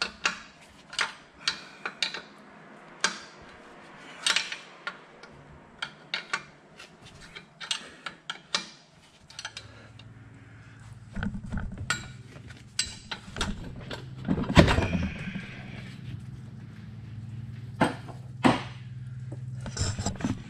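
Irregular metallic clicks and clinks of a hand tool working a radiator hose clamp loose. About halfway through, a steady low hum starts and runs under the clinks.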